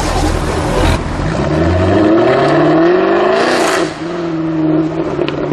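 Jaguar F-Type R's supercharged V8 accelerating hard, its note rising for about two seconds, then running on at a steadier pitch.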